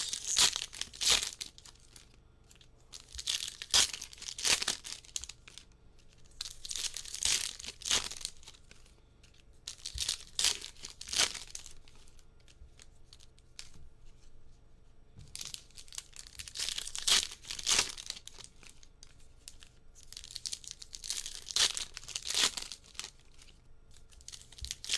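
Topps Chrome Update card packs being torn open, their wrappers tearing and crinkling in bursts every few seconds.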